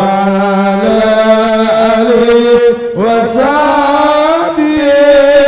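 Arabic devotional chanting of salawat on the Prophet in the marhaban style. The voice holds long, drawn-out notes and slides in pitch between them.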